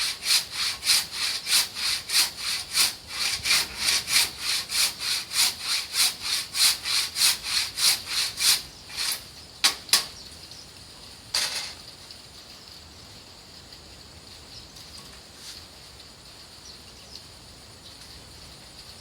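Hand saw ripping lengthwise through a beam of ulin (Bornean ironwood), in quick regular strokes about three a second. About eight seconds in, the strokes slow to a few separate ones and then stop after about eleven seconds.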